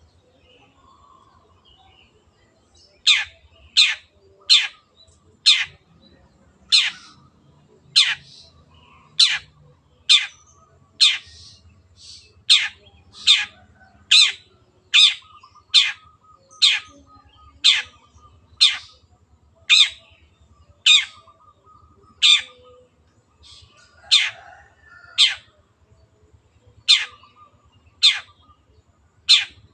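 Long-tailed shrike (cendet) giving a long series of short, sharp, harsh call notes, roughly one a second. The calls begin about three seconds in.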